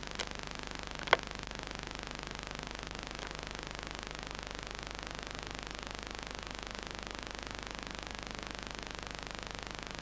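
Playback noise from an open-reel video tape on a Bauer VTR 1004: a steady hiss with a low hum and no other sound on the track, broken by two sharp clicks in the first second or so, the second one louder.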